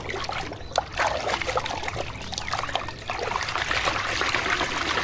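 Water trickling and splashing over a plastic toy as it is rinsed, with small clicks and knocks throughout.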